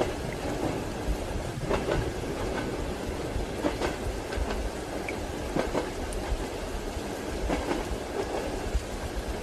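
Train carriage wheels clicking over rail joints with a steady low rumble underneath, the clicks coming mostly in pairs about every two seconds.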